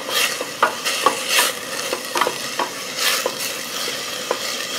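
Diced onion, garlic and shallots sizzling in olive oil in a stainless steel sauce pot, stirred with a wooden spoon: a steady sizzle with repeated swishes and light knocks as the spoon moves. The sizzle is the sign that the pot is hot enough to soften the onions.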